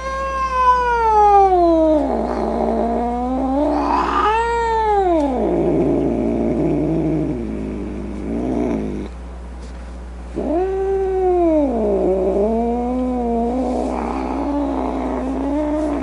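A domestic cat yowling: three long drawn-out calls that swoop down in pitch and trail into a low, wavering moan, with a short break about nine seconds in.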